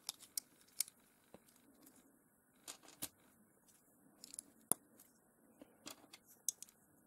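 Faint, scattered clicks and small handling noises of plastic MY Brick building bricks being picked up and pressed together, with a few sharper clicks spread through.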